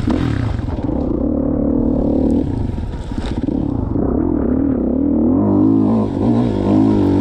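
2016 Kawasaki KX450's single-cylinder four-stroke engine being ridden hard, revving up and down with the throttle. It eases off briefly about three seconds in, then rises and falls in quicker swings near the end.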